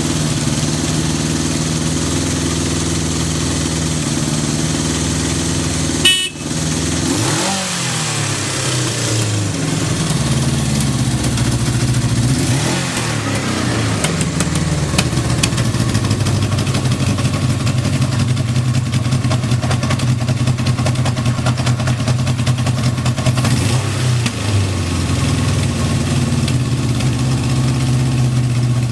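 Kawasaki Z650 air-cooled inline-four engine running at a steady idle, with a sharp clunk about six seconds in. After it the engine speed dips and rises a few times while it keeps running.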